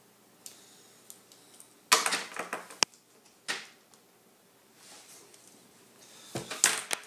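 Scattered clicks and short rustling noises of someone working at a table, tapping the keys of a graphing calculator and handling pen and paper, with a small cluster of clicks near the end.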